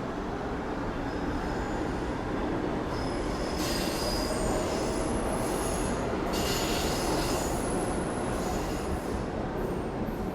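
Subway train running on steel rails under a steady rumble, its wheels squealing in thin high tones that come in about three seconds in and again past the middle.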